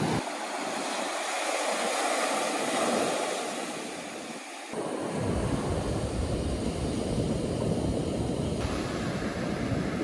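Ocean surf washing up the beach, swelling and easing, with wind rumbling on the microphone from about halfway through.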